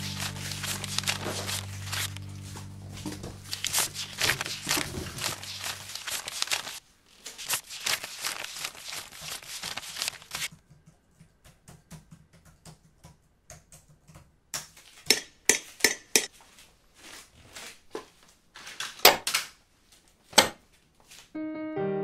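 Small metal cigarette case handled in the hands: rubbing and scraping on the metal, then several sharp metallic clicks of its hinged lid being opened and snapped shut in the second half. Low sustained music tones lie under the first few seconds.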